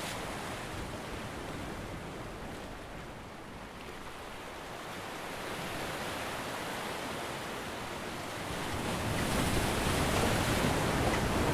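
Sea waves washing on a rocky shore, a steady rush of surf that swells louder about nine seconds in.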